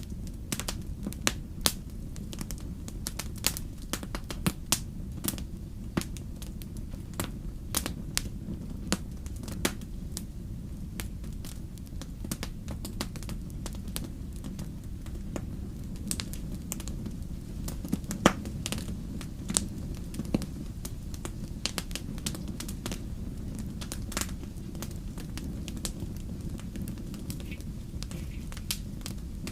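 Wood fire burning, with a steady low rumble of flames and irregular sharp pops and crackles from the burning logs; one pop stands out about 18 seconds in.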